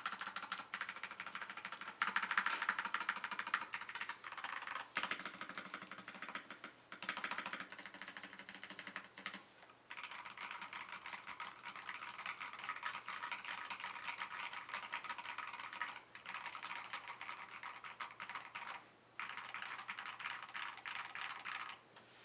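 Fast typing on a 75% mechanical keyboard with unlubed Akko CS Jelly Pink linear switches and XDA-profile keycaps: a dense run of key clacks, broken by a few short pauses.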